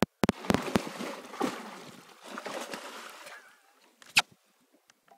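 A hooked muskie thrashing and splashing in the water. It opens with a few sharp knocks, then about three seconds of splashing that dies away, with one more sharp knock near the end.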